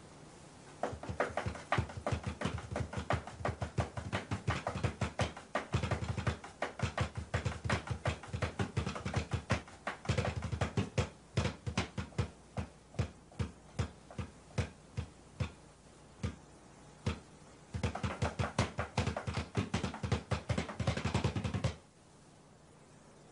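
Set of small drums played fast with drumsticks: rapid strikes in rolls and bursts, easing off briefly about two-thirds through and stopping suddenly a second or two before the end.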